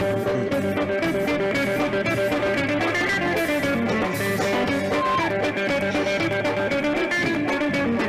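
Live band music led by an electric guitar, with drums keeping a steady beat.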